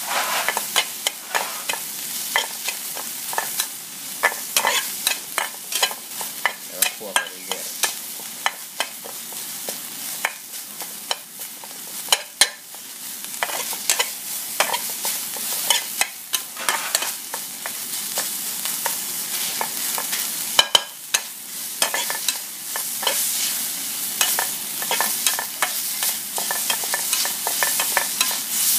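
Metal spatula scraping and clacking against a metal frying pan in quick, irregular strokes as minced chicken in curry paste is stir-fried, over a steady sizzle. The pan is nearly dry, as for a dry-fried kua kling.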